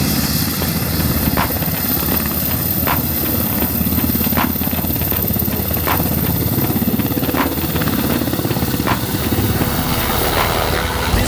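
UH-60 Black Hawk helicopter running, a steady rotor and turbine noise with a fast low beat of the blades. A short faint tick sounds about every second and a half.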